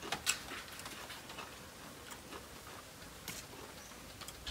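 Scattered light clicks and taps: a few close together near the start, one about three seconds in, and fainter ones between.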